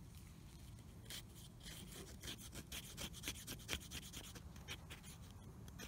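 Small Swiss Army knife blade shaving thin curls off the edge of a wooden stick to make a feather stick. From about a second in comes a run of quick, faint, uneven scraping strokes.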